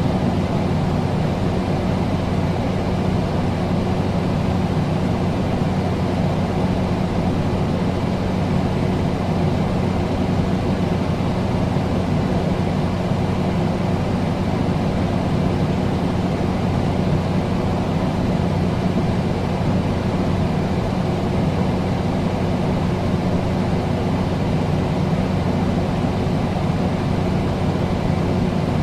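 Air conditioner running: a steady low hum under an even rush of air, unchanging throughout.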